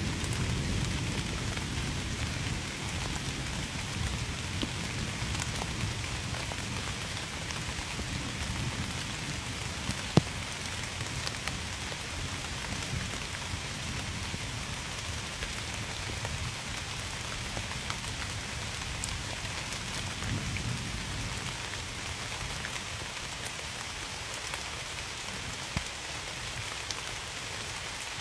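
Steady heavy rain falling, with a low rumble of thunder that dies away and swells briefly again later. A single sharp tick about ten seconds in.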